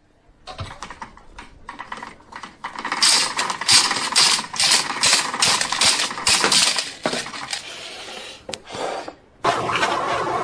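Hand-cranked steel pasta machine being cranked, its rollers and gears clicking and rattling in quick bursts, about two a second at the busiest. Near the end the clicking stops and a steady noise takes over.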